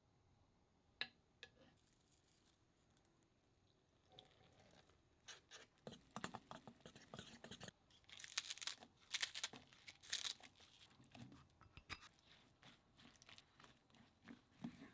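Soft food-prep sounds in a stainless steel bowl. First a run of light clicks and scrapes as the batter is mixed, then the loudest part about midway: a quick series of crisp snips as kitchen scissors cut garlic chives into the bowl. Softer scraping follows as a silicone spatula stirs the batter.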